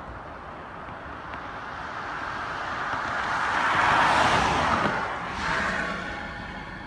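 A car passing on the road, its tyre and engine noise swelling to a peak about four seconds in and then fading, with a smaller second swell just after.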